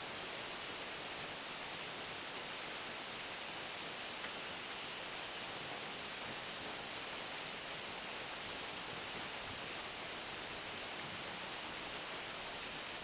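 Steady rainfall: an even hiss of rain falling, with a single faint tick about four seconds in.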